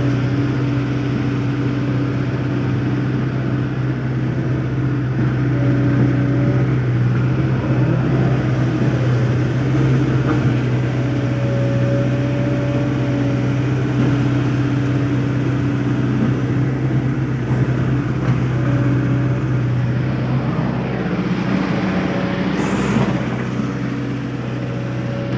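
Volvo 140 excavator's diesel engine running steadily under load while the hydraulic arm digs the bucket into sand, with a higher tone that comes and goes every few seconds as the hydraulics work. Heard from inside the operator's cab.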